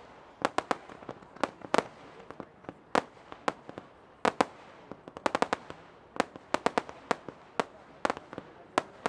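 Fireworks display: sharp bangs at irregular spacing, some single and some in quick clusters of several reports, from shells and firecracker-like salutes bursting overhead.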